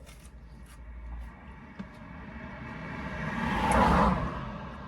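A vehicle passing by: its road noise builds over a couple of seconds, peaks about four seconds in, then fades, over a low steady rumble.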